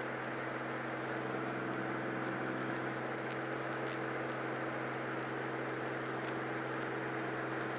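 Steady drone of a Cirrus SR22's piston engine and propeller at reduced power for the descent, heard through the headset intercom as an even hiss with a low hum.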